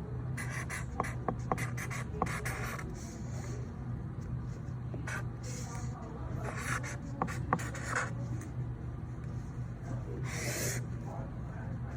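Pen writing by hand on paper: short scratching strokes with small taps between them, starting and stopping irregularly.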